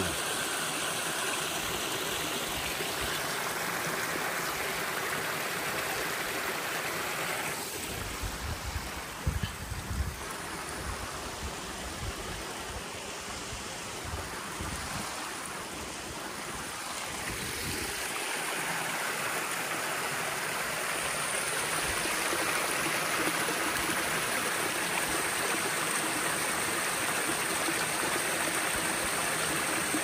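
Rushing water of a small waterfall running full, a steady noise that eases a little midway and swells again toward the end. A few short low thumps sound about a third of the way in.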